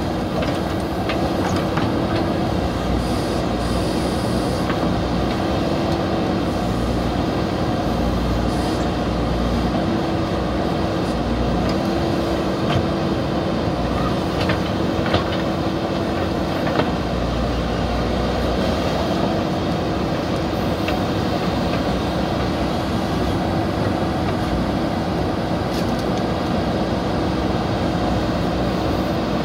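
JCB 3DX backhoe loader's four-cylinder diesel engine running steadily under load while the backhoe arm digs in wet mud, with a few short knocks scattered through.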